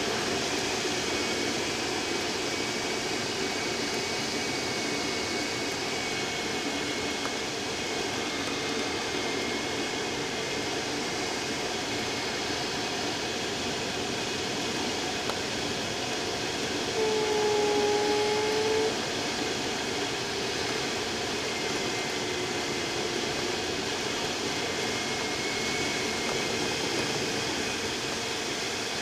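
Steady rush of air past the canopy inside the cockpit of a Speed Astir glider in flight, with faint tones slowly wavering in pitch beneath it. About two thirds of the way through, a clearer steady tone sounds for about two seconds.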